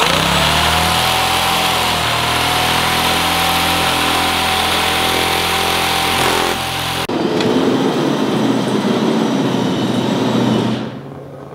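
Electric double-cut sheet-metal shear running and cutting .050 3003 aluminium sheet. The motor's whine rises as it spins up in the first second, then holds steady over the cutting noise. About 7 s in the sound changes abruptly to a rougher cutting noise, which stops near the end.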